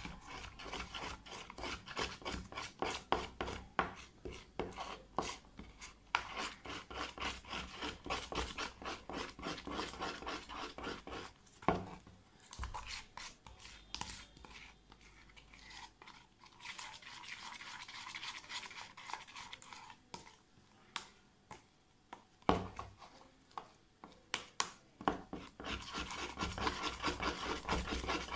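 A utensil stirring and scraping slime mixture around a clear plastic tub, in fast repeated strokes with a couple of short pauses.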